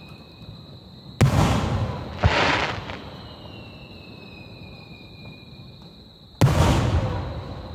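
Aerial firework shells bursting: three sharp booms, about a second in, a second later, and again near the end, each trailing off in a rumbling echo.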